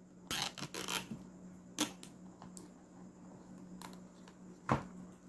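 Plastic cable tie being fastened around a small circuit board by hand: scattered clicks and rubs, a quick cluster at first and then single clicks every second or so.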